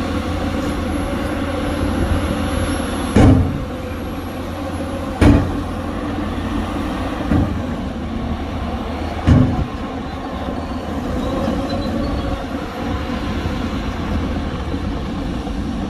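Heavy diesel earthmoving machinery running steadily, with four loud bangs about two seconds apart.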